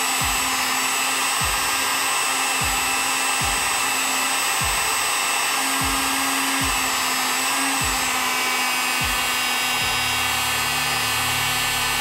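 Electric heat gun blowing steadily, a constant fan-and-air hiss, with soft low thumps about once a second beneath it.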